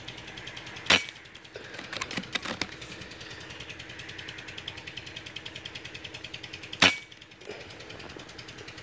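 Two shots from a PCP air rifle, sharp cracks about six seconds apart, the first about a second in and the second near the end. A few quick clicks follow about a second after the first shot as the action is cycled to feed the next pellet from the magazine.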